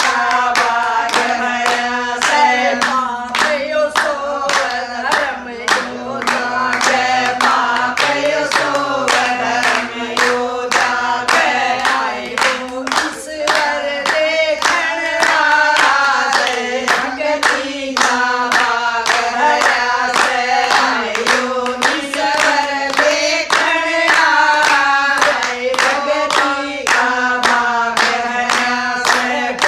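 A group of women singing a Hindi devotional bhajan together, clapping their hands in a steady rhythm of about two to three claps a second.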